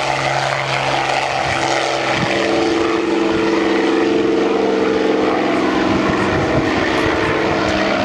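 Messerschmitt Bf 109's piston engine running hard as the fighter takes off and climbs away, a steady propeller drone. Its tone shifts and it grows a little louder about two seconds in.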